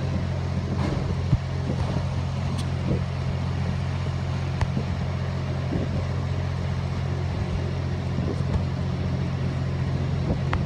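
Heavy machinery running with a steady low hum, with a few faint light clicks over it.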